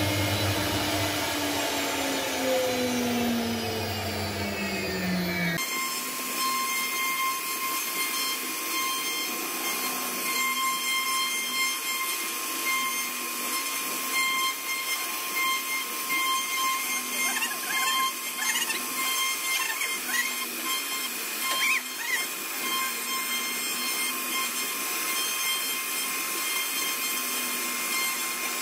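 CNC router spindle running at speed with its bit carving a relief pattern into a wooden panel: a steady high whine over the noise of the cut. The first few seconds hold a different sound, several slowly falling tones that stop abruptly about six seconds in.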